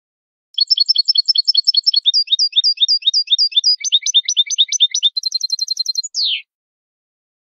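European goldfinch singing a malagueño-style song: a rapid series of high, repeated notes that changes to a new repeated phrase several times and ends on a short down-slurred note. It starts about half a second in and stops about a second before the end.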